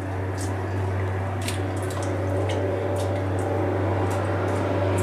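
Cooking pot simmering: scattered sharp pops and drips over a steady low hum.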